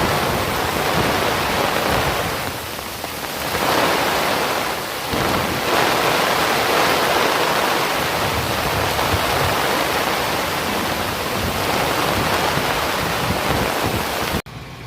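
Heavy rain pouring down in a steady, loud downpour, swelling and easing slightly. It cuts off suddenly near the end.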